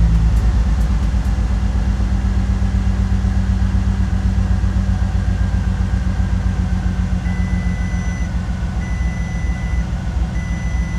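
Bentley Continental GT engine idling with two cylinders not firing, a misfire from suspected damaged wiring. From about seven seconds in, three long electronic beeps of about a second each sound over it.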